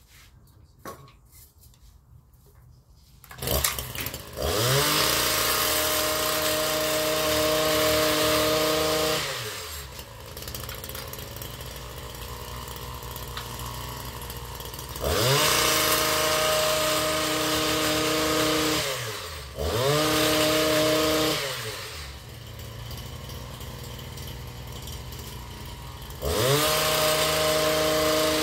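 Gas-powered hedge trimmer: its small engine comes in about three seconds in, then revs up to full speed four times for a few seconds each, dropping back to a lower idle between the bursts.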